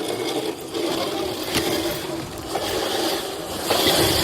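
Steady rushing noise of an electric dirt bike being ridden: tyre and wind noise with a faint motor hum, and two sharp knocks from the bike jolting over the ground.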